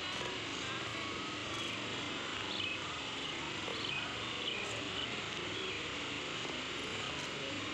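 Steady outdoor background hiss, strongest in the upper range, with a few faint high chirps in the middle.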